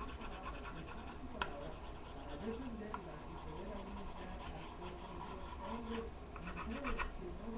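Pencil strokes on paper: quick scratchy shading in runs, busiest near the start and again near the end, with a sharper tick about a second and a half in.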